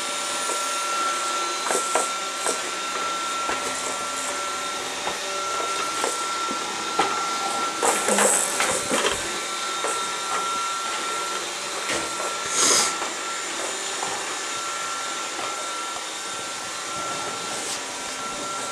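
An iRobot Roomba robot vacuum running: a steady whirring hiss with a thin, steady whine, broken by scattered light knocks and clicks.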